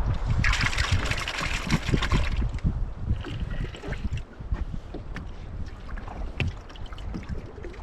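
Wind buffeting the microphone and water sloshing against a small plastic boat, strongest in the first two seconds and easing off after, with scattered small knocks.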